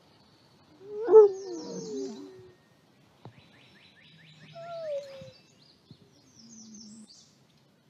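Grey wolves and their pups making short whining, moaning calls, the loudest about a second in and a falling whine near the middle. Birds chirp faintly in the background.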